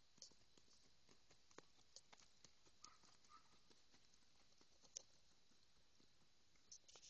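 Near silence, broken by faint, irregular clicks and soft taps.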